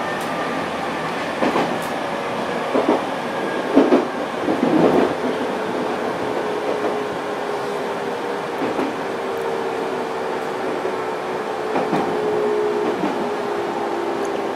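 701 series electric train running on the rails, with scattered wheel clicks over rail joints and a steady motor whine that drifts slowly lower in the second half.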